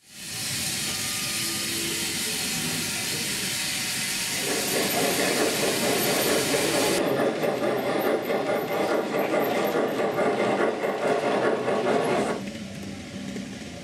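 Steam locomotive sound: a loud, steady hiss of steam, joined about four seconds in by rhythmic chuffing that cuts off suddenly near the end.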